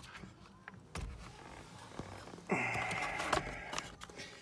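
Plastic clicks, then a harsh scrape of about a second starting near the middle, as the driver's airbag module is pulled off a Nissan NV200 steering wheel once its retaining clips are released.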